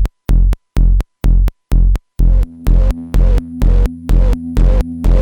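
Electronic music from a Bastl KASTLE v1.5 and Hikari Monos synthesizer pair: a steady kick-drum-like thump about two and a half times a second, joined about two seconds in by a droning pitched synth tone with noisy hiss.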